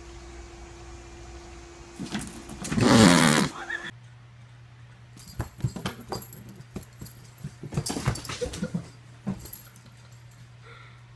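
Domestic cats: a loud cry about two seconds in, lasting over a second, then a run of short knocks and brief low calls as two cats scuffle.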